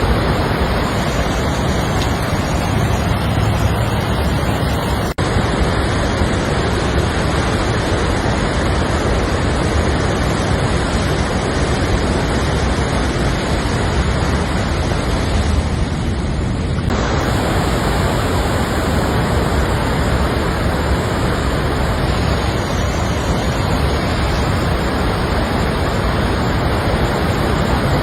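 Floodwater rushing, a loud steady noise with no letup, broken by brief cuts about five seconds in and again near seventeen seconds.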